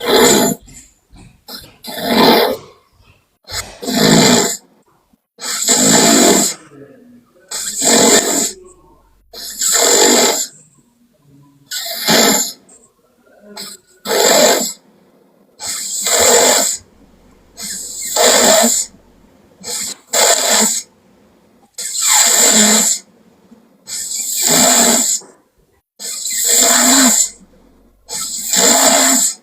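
A person snoring loudly and steadily, one harsh, rasping snore about every two seconds, each lasting about a second.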